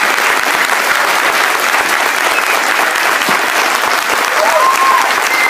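Large audience clapping in dense, steady applause, with a voice calling out briefly over it near the end.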